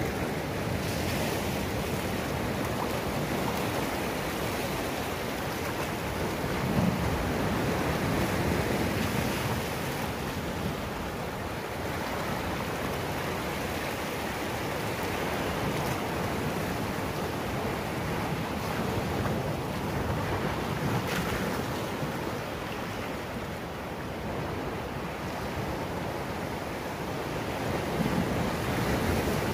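Sea surf breaking over rocks and washing through rock pools: a continuous rush of water, swelling louder as bigger waves come in, once about seven seconds in and again near the end.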